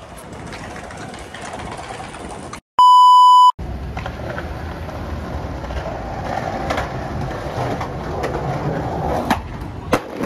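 A censor bleep: one steady, loud, high beep lasting just under a second about three seconds in, with the rest of the sound dropped out around it. After it, outdoor street noise, and near the end two sharp skateboard clacks as a skater bails.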